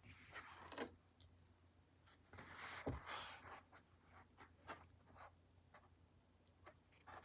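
Faint scratching of a pen drawing on paper: a longer stroke near the start, another run of strokes about two and a half seconds in, and scattered light taps and short strokes.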